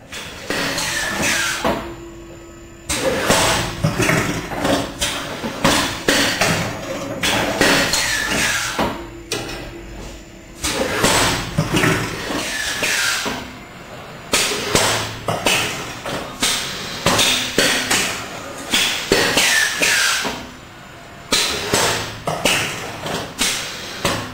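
Automatic tubular-bandage rolling and cutting machine running: repeated clattering knocks from its mechanism, coming in bursts every few seconds, with short falling squeals among them.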